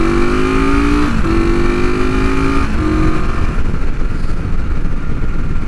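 1973 Honda CB450's parallel-twin engine on cheap aftermarket pipes, pulling up through the gears: the pitch rises, breaks for a shift about a second in and again near three seconds, then the throttle eases off and the engine note fades under low wind rumble.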